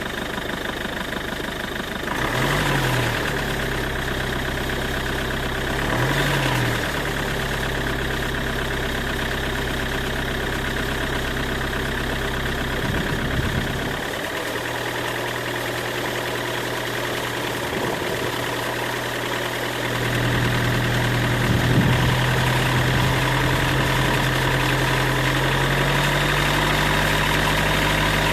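Peugeot 806's 2-litre diesel engine idling, with two short throttle blips a few seconds apart early on, then held at raised revs that step up again near the end. The owner says an abnormal extraneous noise appears as the revs rise.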